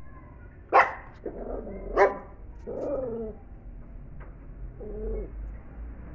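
Pinscher dog barking at a fly: two sharp, loud barks about a second apart, then three shorter, lower grumbling calls.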